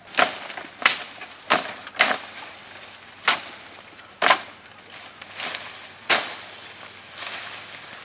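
A blade chopping into a yellow bamboo culm: about seven sharp, hollow-wood strikes, coming quickly at first and then more spaced out, with a couple of lighter hits between them.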